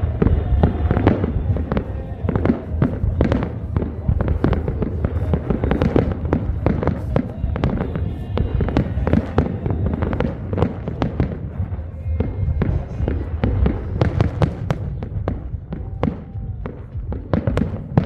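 New Year's fireworks: a dense, continuous barrage of bangs and crackles from many shells and firecrackers going off in quick, irregular succession, easing off a little in the last few seconds.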